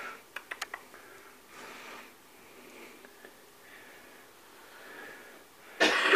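A person coughs once near the end, over quiet room tone. A quick run of small clicks comes about half a second in.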